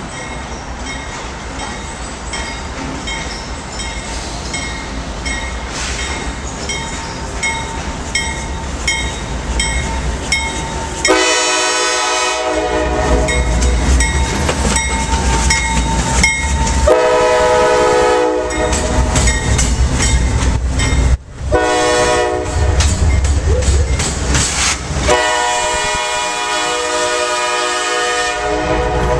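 CSX diesel locomotive passing, its air horn sounding several loud blasts, long and short, from about eleven seconds in, over the low rumble of the diesel engine. Before the horn, a bell dings about twice a second.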